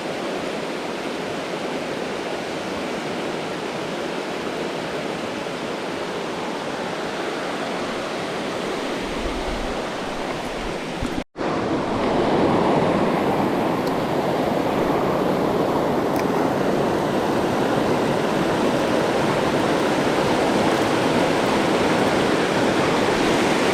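Creek water rushing steadily. About halfway through it cuts out for an instant, then comes back louder and fuller.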